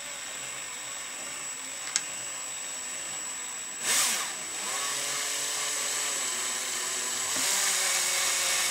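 Cordless drill running slowly, its bit cutting through a nylon engine mount to enlarge a pilot hole. The motor's pitch wavers as the trigger is eased, with a sharp click about two seconds in, a brief louder surge about four seconds in, and the pitch dropping under heavier cutting near the end.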